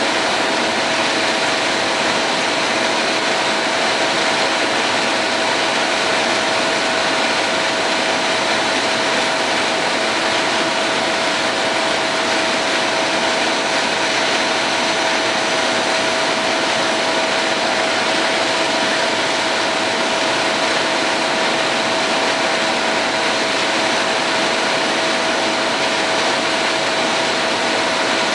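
Steady, unchanging mechanical whir with a constant mid-pitched hum running through it.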